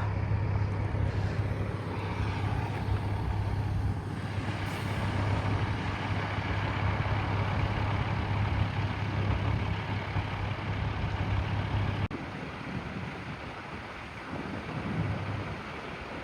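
A heavy engine running steadily with a low hum, under a wash of outdoor noise; the hum cuts off abruptly about twelve seconds in, leaving quieter noise.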